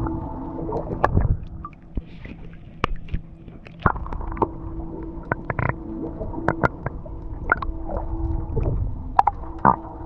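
Water sloshing and gurgling against the boat, with many small knocks and clicks and a steady low hum that comes and goes.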